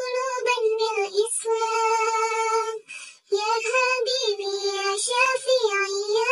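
A child's high voice singing an Arabic song in long held notes, with a short break about three seconds in.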